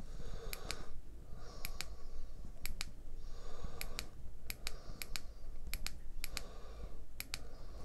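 Tactical LED flashlight's push-button switch clicked repeatedly, about nine presses, each giving a quick double click.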